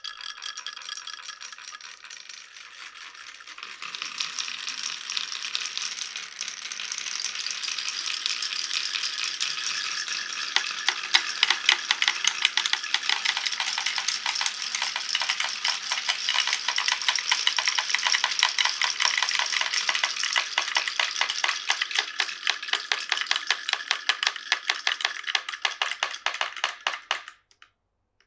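Glass marbles on a wooden marble run: a few seconds of steady ringing tones, then a dense clatter of many marbles rolling and clicking along the tracks, which stops abruptly near the end.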